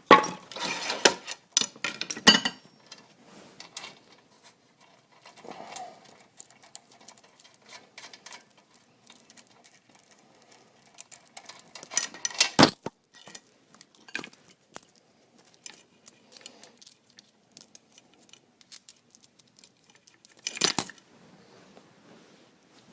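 Metal tools and hardware clinking and rattling as they are handled and set down, in short clusters of sharp clicks: one at the start, a louder one about halfway through, and another near the end.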